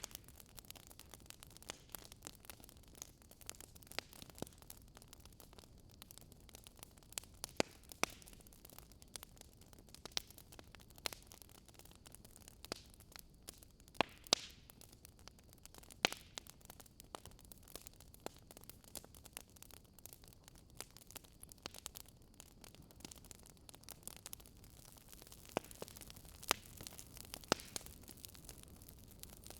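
Fireplace fire crackling: a faint, steady hiss with sharp pops and crackles at irregular intervals, a few of them louder than the rest.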